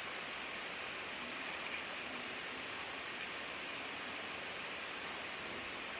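Steady, even hiss of background noise, with no distinct knife chops standing out.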